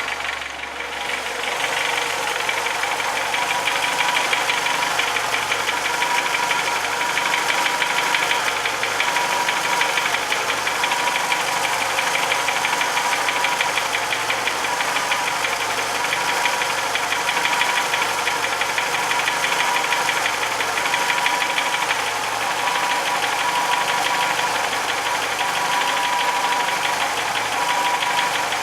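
VW Jetta Mk2's 1.8-litre GX four-cylinder engine running cold, with a steady, rapid knocking: the strange knock the owner cannot yet explain.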